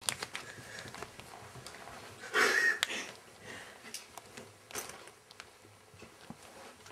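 Light taps and soft footfalls on a wooden floor, with one short, louder breathy noise about two and a half seconds in.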